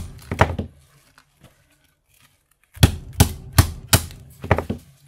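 A run of sharp hard knocks, evenly spaced at about two a second, from the pieces of a cracked-open electrical outlet being worked apart on a hard surface. Two knocks come at the start, then a short lull, then five more.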